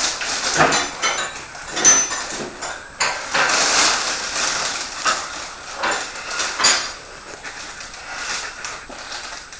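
Crisp packet crinkling and rustling in irregular bursts as it is handled and crisps are taken out and eaten. The longest, loudest crinkling comes a few seconds in, with sharp crackles near the start and about two-thirds of the way through.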